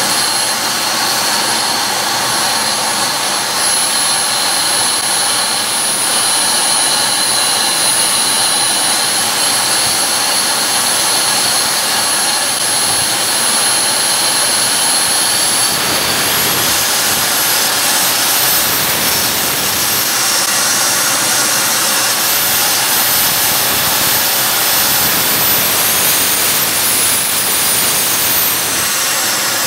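Model jet turbine in the BVM Super Bandit RC jet running on a ground test: a steady high whine over a loud rush of exhaust. The pitch steps up about halfway through and again near the end as it is throttled up to full throttle.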